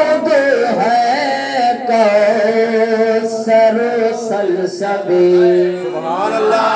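A man sings a naat unaccompanied, holding long wavering notes that bend up and down, and begins a new rising phrase near the end.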